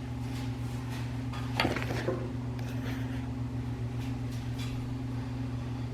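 A steady low hum, with faint rustling and a light knock about a second and a half in.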